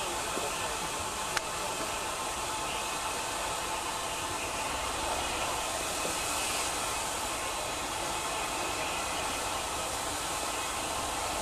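Steady rushing noise of an approaching BR Class 33 diesel locomotive and its 4-TC train, heard from a distance, with no distinct engine note and a single light click near the start.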